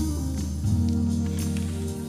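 Choral music: a low chord that changes about half a second in and is then held steady.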